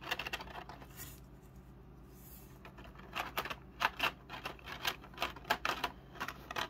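Small plastic action-figure parts being handled: a few clicks and taps at the start, then a quick run of clicks and knocks from about three seconds in.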